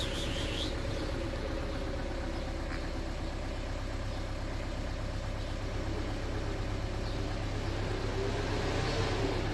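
Steady low hum of an idling engine, swelling slightly near the end.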